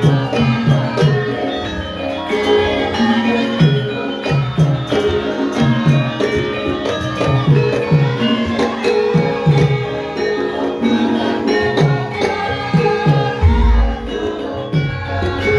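Live Javanese gamelan music for a Wonosobo lengger and topeng dance: held metallophone tones over a steady pattern of kendang drum strokes that bend downward in pitch, with some singing. A short low thud comes about 13 seconds in.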